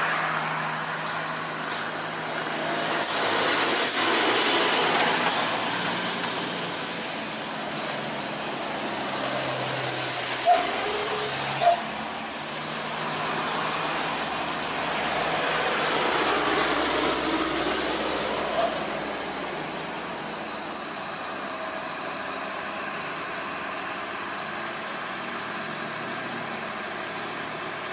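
Diesel engines of heavy cargo trucks running as they drive slowly round a bend, a steady drone with a hiss that swells and fades as trucks pass. Two brief sharp sounds stand out about ten and twelve seconds in.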